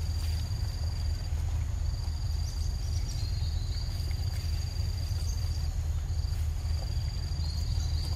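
Insects trilling in high-pitched stretches of a second or two with short breaks, over a constant low rumble.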